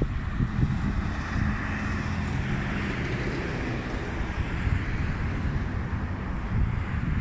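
Wind buffeting the microphone over the steady noise of traffic on a busy multi-lane road.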